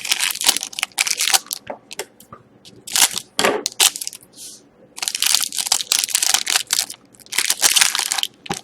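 Plastic wrapper of a hockey trading-card pack being torn open and crinkled in hand, in several bouts of crackling.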